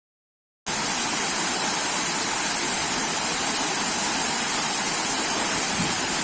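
Waterfall rushing: a steady, even noise, strongest in the high hiss range, that cuts in suddenly after a moment of silence less than a second in.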